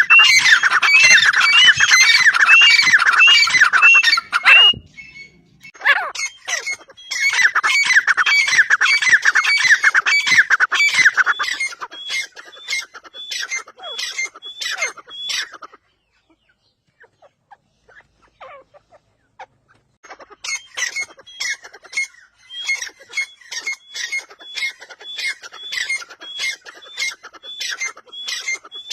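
A teetar (partridge) calling: a loud, rapid run of harsh repeated notes lasting about four seconds, then another run of about six seconds that fades out. After a pause of a few seconds it resumes with a slower series of sharp notes, about two or three a second.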